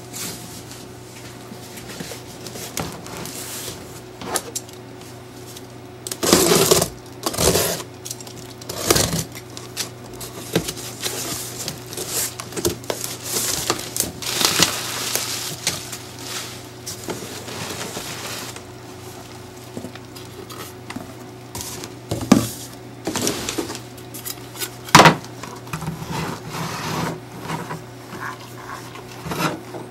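Cardboard box and bubble wrap being handled: irregular rustling and crinkling as a package is opened and unpacked by hand. Sharp knocks come at intervals, the loudest about 25 seconds in.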